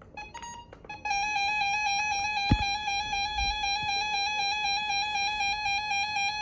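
Radio Shack 12-262 weather radio sounding its alert siren in a test. A few short beeps and clicks come first. About a second in, a steady, buzzy electronic alarm tone starts and holds, and a single thump falls a couple of seconds in.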